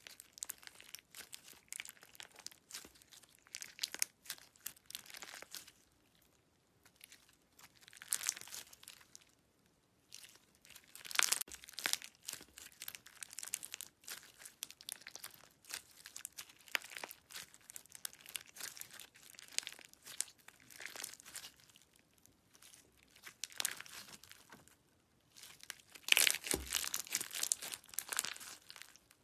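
Fingers squeezing and pinching clear slime packed with small charms and beads, making crinkly, crackling sounds in irregular bursts with brief pauses between. The loudest stretch comes near the end.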